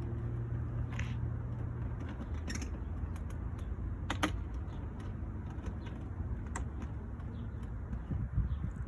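Scattered sharp clicks and light knocks of plastic grille clips being worked loose with a flathead screwdriver, one of them a quick double click, over a steady low rumble.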